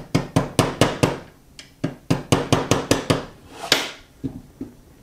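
Small hammer striking a punch in quick runs of sharp taps, about five a second, driving the locking-block pin the rest of the way into a Glock 20 Gen4's polymer frame.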